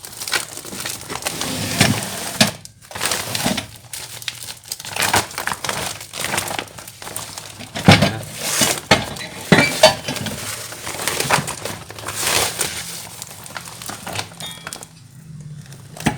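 Plastic packing wrap being crinkled and pulled off steel plate parts, irregular rustling and tearing with a few sharp clinks of the steel.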